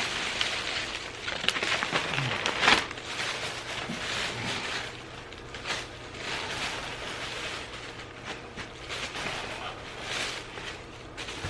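Takeout bag and wrappers rustling and crinkling as food and napkins are pulled out, with scattered light knocks.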